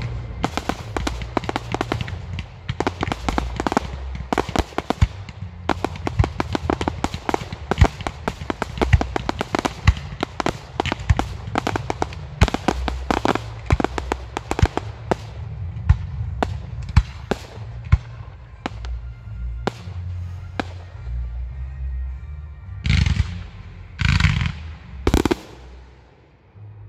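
Fireworks going off: a dense, rapid crackling and popping of many shells and effects, thinning out after about two-thirds of the way through, then three heavy booms close together near the end.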